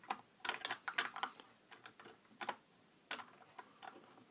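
Irregular small clicks and taps of a plastic flashlight body and its parts being handled, in a few quick clusters.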